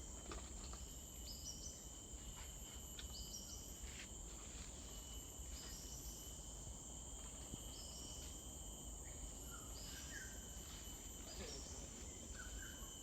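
Rainforest insects droning steadily at a high pitch, with short rising calls repeating every second or two and a few brief bird chirps near the end, over a low rumble.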